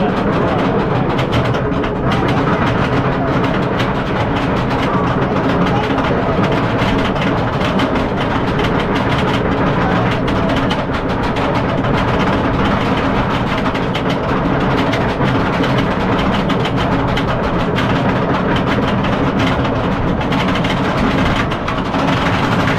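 SheiKra, a Bolliger & Mabillard dive coaster: the train is hauled up its chain lift hill, and the lift chain clatters loudly and steadily with rapid clicking.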